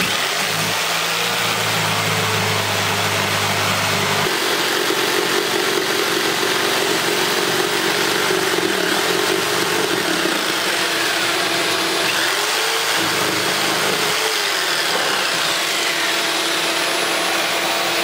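Corded jigsaw cutting a register opening through the floor, running together with a shop vacuum that sucks up the sawdust at the blade: a steady motor noise whose pitch shifts a little now and then.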